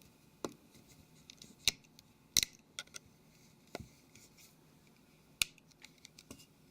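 Small plastic phone parts clicking and tapping as a smartphone's screen assembly is worked into its rear cover: about half a dozen sharp, irregular clicks with fainter ticks between.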